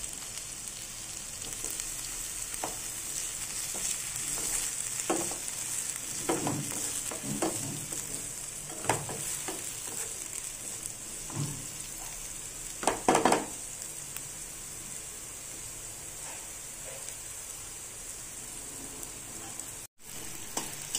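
Onions and freshly added chopped tomatoes sizzling in oil in a non-stick pan, with a steady high hiss. A wooden spatula stirs them, scraping and knocking against the pan now and then, loudest about thirteen seconds in.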